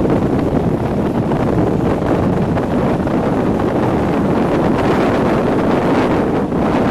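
Steady rush of wind buffeting the microphone held out of the window of a Class 37 diesel-hauled passenger train running at speed, over the train's low running noise.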